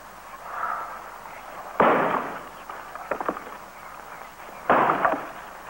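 Axe chopping firewood: two sharp chops about three seconds apart.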